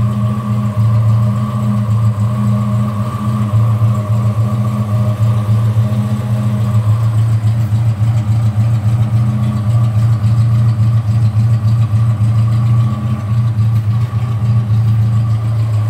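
1966 Vauxhall Victor 101's four-cylinder engine ticking over steadily, shortly after a cold start.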